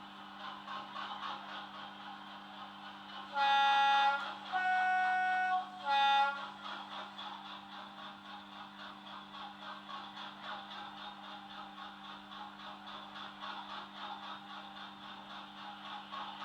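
Hornby Class 50 OO gauge model's DCC sound decoder (Legomanbiffo sound file) playing a Class 50 diesel idling, heard through the model's small speaker. About three and a half seconds in, the two-tone horn sounds high, low, high, and the last note is short.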